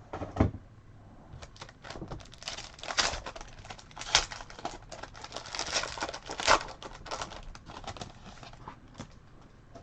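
Trading card pack wrapper crinkling and tearing as it is opened, heard as a run of short rustles and crackles with a few louder ones.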